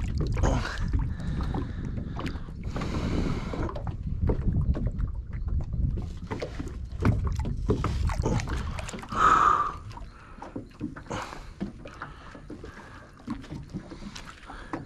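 Wind buffeting the microphone in gusts as a low rumble, easing off a little past halfway, with scattered knocks and a brief louder sound about nine seconds in.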